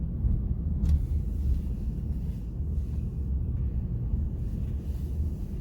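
Low steady rumble inside a car with its engine running, with a single light click a little under a second in.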